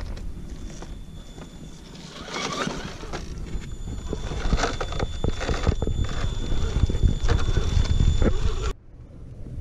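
Axial SCX10 RC rock crawler grinding over rocks: a thin, steady high electric-motor and gear whine with irregular clattering knocks of tyres and plastic chassis on stone, growing louder as it nears. It cuts off suddenly near the end.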